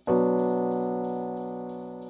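Background music: a slow keyboard chord struck at the start, held and slowly fading.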